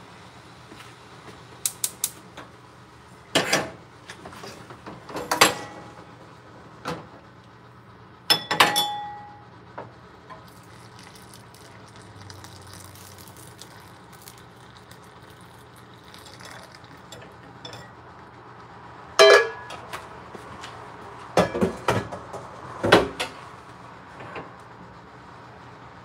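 Scattered clinks and knocks of ceramic bowls and a metal spoon being picked up and set down, a few of them ringing briefly, with long quiet gaps between.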